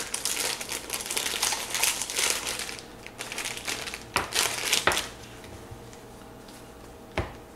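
Plastic packaging crinkling and rustling as it is pulled open by hand, dense for the first few seconds, then a couple of short rustles, with a single sharp click near the end.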